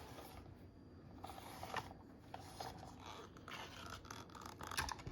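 Scraping and rustling handling noises as the fan is picked up and moved about, with a sharper knock near the end.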